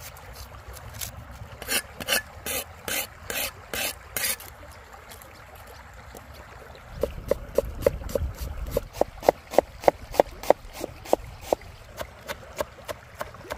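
Knife working on a plastic cutting board: a run of short rasping strokes, then, after a pause, a steady run of sharp chopping taps, about three a second.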